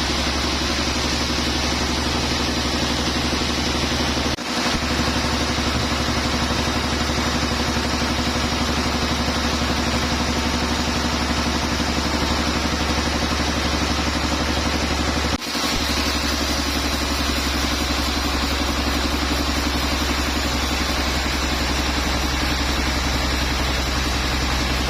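Sawmill machinery running steadily with a constant engine-like drone. The sound dips briefly twice, about four seconds in and again about fifteen seconds in.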